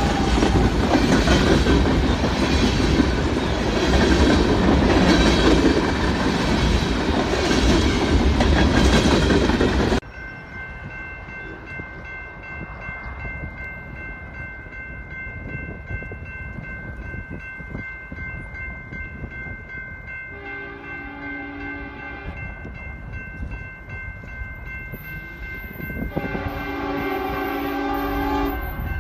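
Freight train cars rolling past close by, wheels clicking rhythmically over the rail joints. After an abrupt cut the sound is quieter, and a diesel locomotive's air horn blows twice: a two-second blast, then a longer one near the end.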